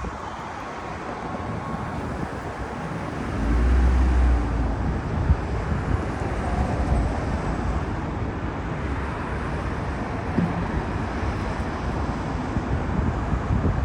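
Steady outdoor background rumble, with a heavier low buffeting about four seconds in.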